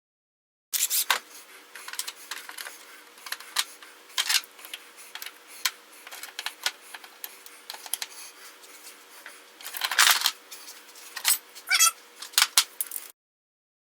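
Irregular clicks and knocks of small hard objects being handled, over a faint steady hum, with a short falling squeak near the end.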